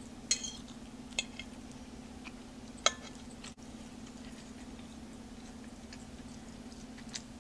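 A few sharp clicks of a metal fork against a ceramic plate while eating a spinach salad, the loudest about three seconds in, over a steady low hum.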